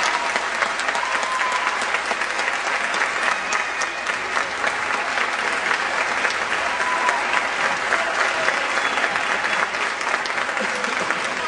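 Audience applauding steadily with dense clapping, which dies away near the end.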